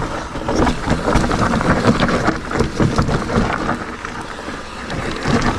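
Electric mountain bike rolling slowly down a steep, narrow dirt trail: tyres crunching over dry leaves, soil and roots and the bike rattling, with many small knocks and scrapes as the pedals catch on the sides of the narrow rut.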